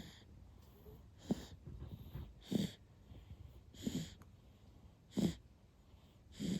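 Light, quick snoring: five short snoring breaths at an even pace, about one every 1.3 seconds.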